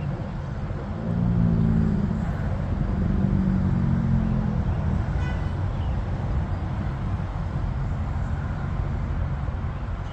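Jet climbing away in the distance after takeoff: a low, steady rumble that swells for a few seconds about a second in, then settles.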